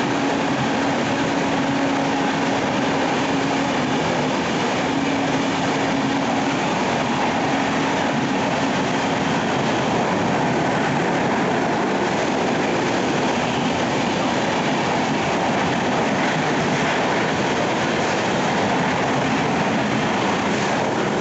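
Passenger train's coaches rolling past close by: a steady rumble and rattle of wheels on rails, with a faint low hum that comes and goes in the first half.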